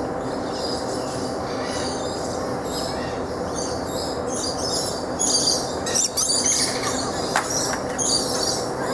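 Birds chirping over a steady, loud hum, the chirps growing busier and louder about halfway through.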